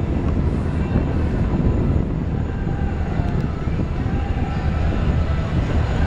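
Steady low rumble from riding in a sky ride gondola: wind buffeting the microphone together with the car's running along its cable.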